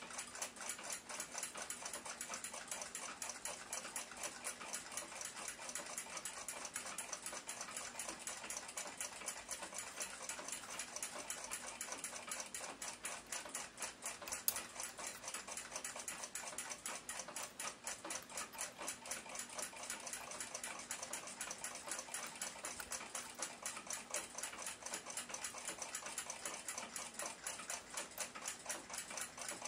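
A clock ticking steadily at a fast, even rate. About halfway through there is one sharper small click.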